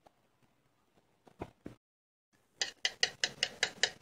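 Wire whisk beating eggs in a ceramic dish: quick, even clinks of the whisk against the dish, about six a second, starting about two and a half seconds in after a near-silent pause with a couple of faint knocks.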